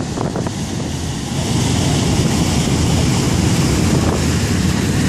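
Wind buffeting the microphone on the open deck of a passenger ship under way, over the rush of water from its wake. The wind grows louder about one and a half seconds in.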